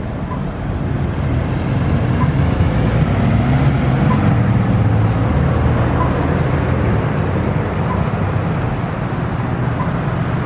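Road traffic: a vehicle's low engine rumble that swells for a few seconds in the middle and then eases off. A faint short beep repeats about every two seconds.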